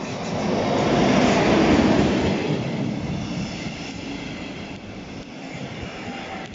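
Electric locomotive and double-deck passenger coaches passing close by on the track. The rumble and rattle of the wheels is loudest a second or two in as the locomotive goes by, then settles lower as the coaches roll past.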